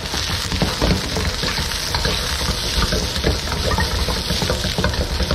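Parboiled, quartered potatoes sizzling in hot olive oil in a carbon steel wok, a steady crackling hiss with many small clicks as they are stirred.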